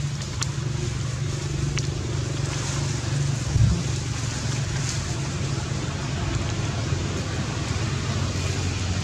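Steady low engine hum of a motor vehicle running, with a brief thump about three and a half seconds in.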